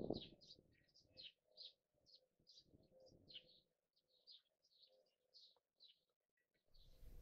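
Faint chirping of small songbirds: a quick run of short, high notes, about three a second. The notes stop near the end as a steady background hiss comes in.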